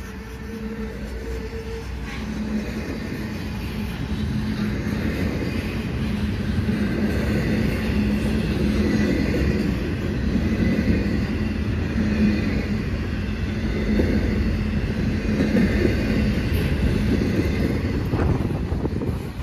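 Diesel locomotive engines running with a steady low drone, growing louder over the first several seconds as the train approaches.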